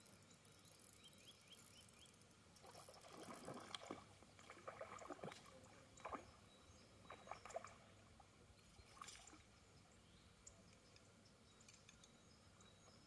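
Faint splashing and dripping water as a fishing lure is reeled in and lifted out of the pond, with a few sharp clicks, in otherwise near silence.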